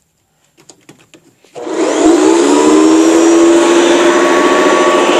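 A few light clicks, then about a second and a half in a Hoover Guardsman upright vacuum, fitted with a motor from a Hoover Decade 80, switches on. Its motor spins up with a rising whine and then runs steadily and loudly, and it sounds a lot nicer.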